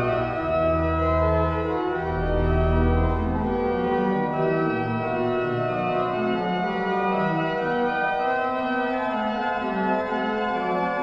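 Organ music: slow, sustained chords, with deep bass notes under them for the first few seconds that then drop out.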